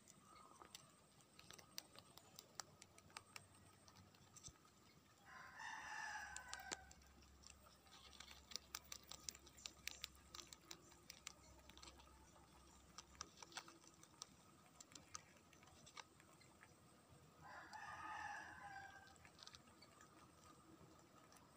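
Rabbits chewing green leaves: a quiet, irregular crunching of small clicks. A bird gives two louder calls of about a second and a half each, about five seconds in and again near the end.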